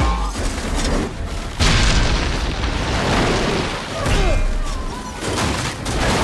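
Dense action-film sound effects of a runaway train smashing through a street: repeated heavy booms and crashes of debris being struck, with a sudden loud crash about one and a half seconds in.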